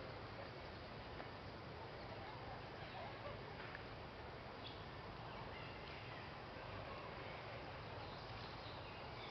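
Faint steady outdoor background noise with a few faint, short chirps.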